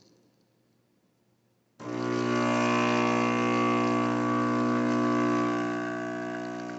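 Near silence, then less than two seconds in the pump of a 20-bar espresso machine switches on abruptly with a steady, loud buzzing hum that eases off somewhat near the end.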